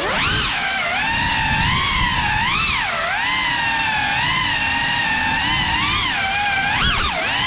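Cinewhoop FPV drone (GEPRC Cinelog35) in flight: its brushless motors and ducted propellers whine, the pitch rising and falling with throttle. The pitch dips sharply about three seconds in and again just before the end.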